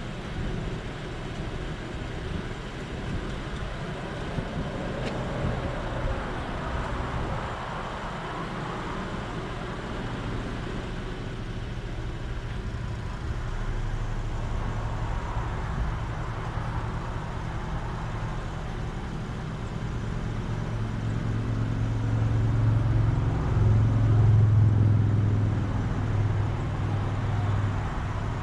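Car engine idling, heard from inside the cabin. About two-thirds of the way through, a low engine drone swells, loudest a few seconds before the end, then eases slightly.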